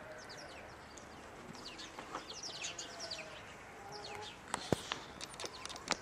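Birds chirping in quick, high, falling calls. Near the end come two sharp clicks, the first loud, as a knife touches the ceramic plate while a piece of baklava is set down.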